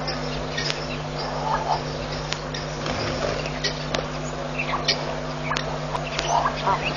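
Scattered short chirps and quick calls of wild birds, with a short repeated call near the end, over a steady low hum.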